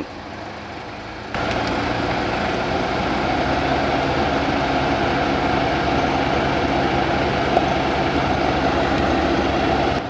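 BMW 520d (F10) cabin blower fan switched up to maximum about a second in: steady rushing air with a droning, resonance-like hum, a "woo-ung" that gives an ear-pressure feeling. The mechanic attributes this to something inside the squirrel-cage fan, such as crumbled intake sponge filter or leaves, throwing it off balance.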